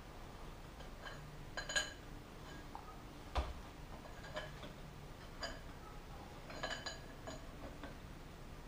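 Light metallic clinks and taps with a short ring as a new fork bush is worked onto the oiled stanchion of a motorcycle telescopic fork, and one duller knock about three and a half seconds in. The bush is a tight fit and won't slide on easily.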